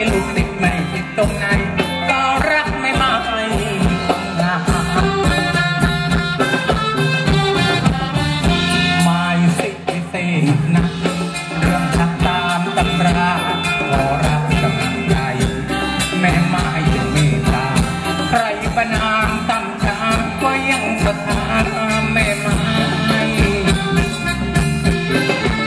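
Live Thai band playing ramwong dance music, with drum kit, electric guitar and keyboard over a steady, even beat.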